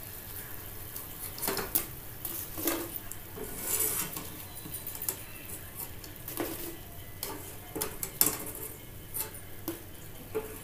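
Steel wire skimmer clinking and scraping against the frying pan as fried samosas are scooped out of hot oil, in irregular knocks over the faint sizzle of the oil.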